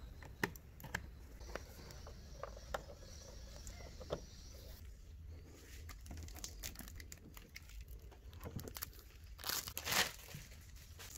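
Crinkling and scattered sharp clicks. A faint high hiss runs through the first few seconds, and a louder rustle comes near the end.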